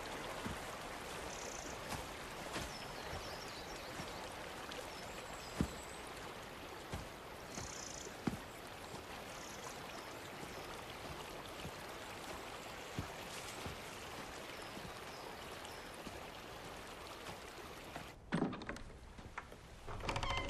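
Stream flowing over rocks, a steady trickling rush, with scattered soft footsteps and snaps as someone walks over frozen, snowy ground. Near the end the water sound cuts off and a short scraping sound follows.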